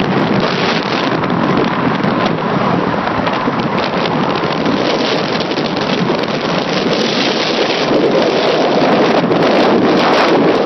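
Steady wind rushing over the microphone together with road noise, recorded from a car moving at highway speed.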